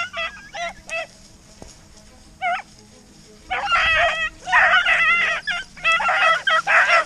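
Rabbit-hunting dogs barking and baying on the trail, several voices overlapping in short, high calls. A few calls come early, then a louder, thicker spell of baying starts about three and a half seconds in.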